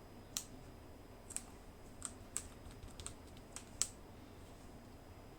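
Light, sharp clicks and taps of small wooden pieces being handled and set down on a workbench. There are about ten of them at irregular intervals, stopping about four seconds in.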